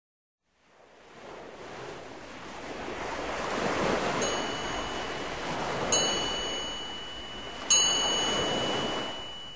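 Swelling wash of ocean surf in a background soundtrack, rising from silence about a second in, with three bell-like chime tones struck about four, six and eight seconds in and ringing on.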